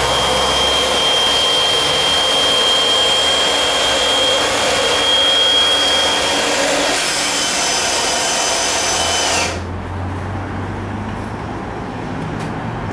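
Handheld electric air blower running steadily with a thin high whine while inflating an inflatable boat's tubes. About nine and a half seconds in, the whine dips and the sound suddenly drops to a quieter, lower hum.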